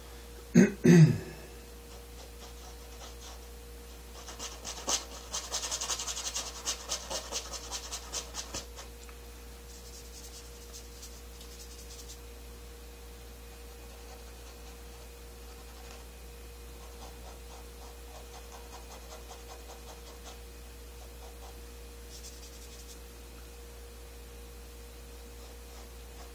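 Paintbrush scrubbing thin paint onto a canvas in quick, rapid scratchy strokes, loudest for about four seconds starting some four seconds in, with fainter bouts of brushing later. Two loud bumps come right at the start.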